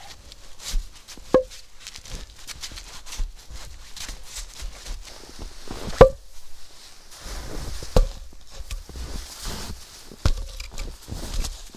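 Short sawn log sections knocking against each other as they are set down and stacked, a few sharp wooden knocks with the loudest about halfway through. Boots crunch in snow between the knocks.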